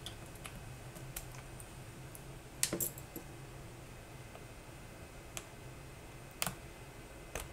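A few scattered, separate clicks and taps of plastic from handling a Tecware Phantom Elite+ mechanical keyboard as it is opened up, with a short cluster of clicks a little over halfway through.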